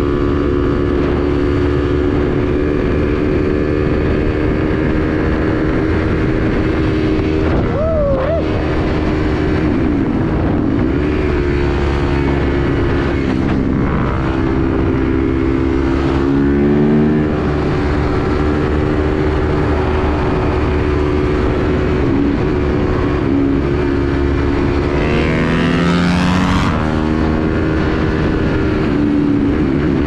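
Yamaha YZ dirt bike's single-cylinder engine running at road speed, heard up close from the rider's helmet over a steady rush of noise. The engine note steps in pitch a few times as the gears change, and near the end it revs up in a rising whine as the bike accelerates.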